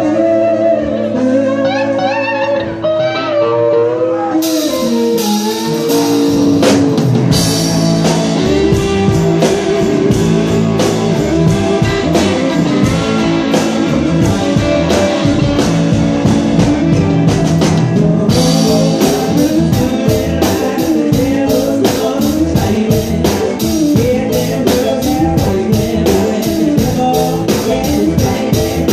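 Live band playing: a guitar melody line alone at first, then drums with cymbals and the full band come in about four to seven seconds in, keyboards and guitars over a steady beat.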